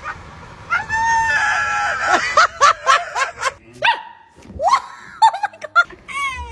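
A dog barking several times and giving high, drawn-out whines, with a person laughing.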